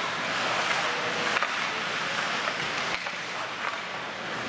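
Ice hockey play: skates scraping across the ice in a steady hiss, with a couple of sharp clacks.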